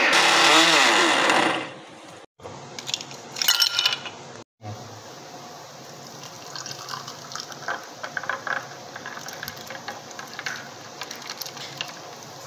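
An electric blender runs loudly for about a second and a half, then its motor winds down with a falling pitch. After a few short knocks, the thick milkshake is poured from the blender jug into a glass: a quieter, steady pouring sound.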